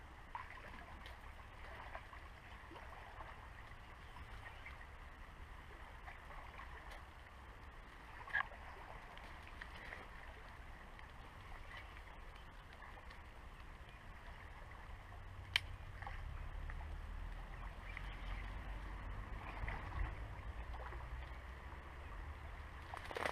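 Faint water sloshing and splashing as a large hooked wels catfish swirls at the surface near the bank during the fight, over a low rumble, with two single sharp clicks.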